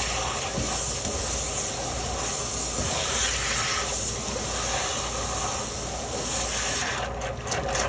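Steady hissing from cooking, with a short drop near the end.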